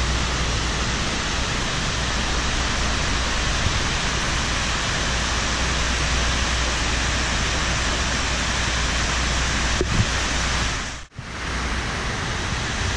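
Steady rushing of water cascading down the walls of the 9/11 Memorial's reflecting pools, an unbroken waterfall hiss. It cuts out for a moment about eleven seconds in, then resumes.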